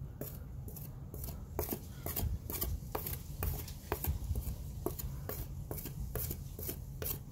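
Metal putty knife scraping and smoothing putty over a chewed door frame: a run of short, irregular scrapes and clicks, several a second.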